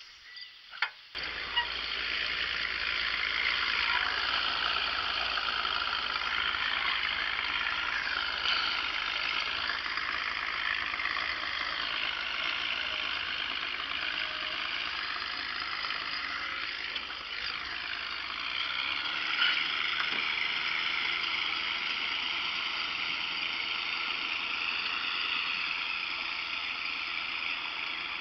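A small boat motor starts up about a second in and runs steadily as the boat moves along, with water noise. A low hum eases off about two-thirds of the way through.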